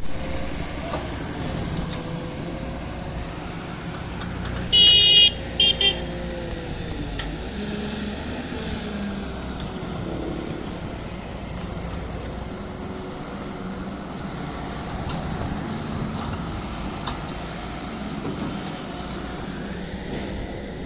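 A vehicle horn blasts once for about half a second, then gives two short toots, about five seconds in, over the steady running of a heavy engine.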